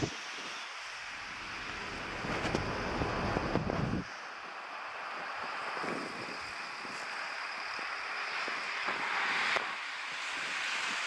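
Storm wind blowing in a blizzard as a steady rushing hiss, with gusts buffeting the microphone as a deep rumble for the first four seconds that stops abruptly, then briefly again later.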